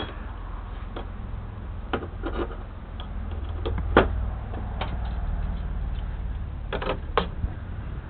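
Irregular light clicks and knocks from handling the metal lathe and its parts, over a low rumble.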